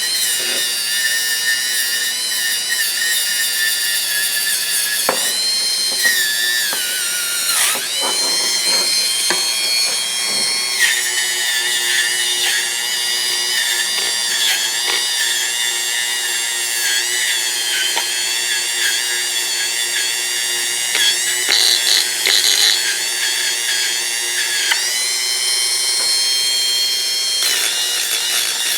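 High-speed rotary tool (Dremel type) spinning a plastic fiber abrasive wheel against the steel of pliers' jaws, a steady high-pitched whine. Its pitch sags briefly a few times, around six to eight seconds in, near eleven seconds and again near twenty-five seconds, as the wheel loads against the metal.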